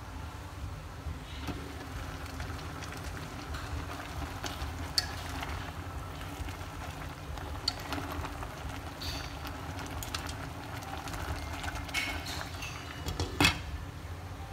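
A steel pot of greens boiling, stirred with chopsticks that tap and click against the pot. A sharp metallic clink about thirteen seconds in comes as the glass lid is set back on.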